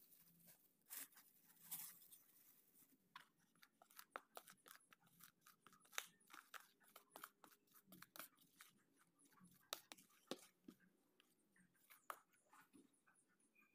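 Faint, irregular crunching and scratching of fingers working dry flour and cornstarch into a wet mixture in a plastic bowl: a scatter of small, uneven clicks.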